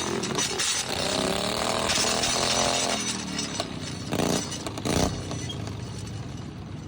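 Small lawnmower engines running and revving up and down, with two loud knocks about four and five seconds in.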